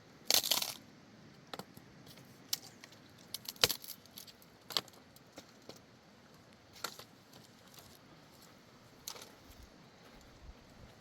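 Scattered light clicks and knocks, like small hard objects being handled, with a brief clattering burst just after the start and a sharp click a little past three and a half seconds.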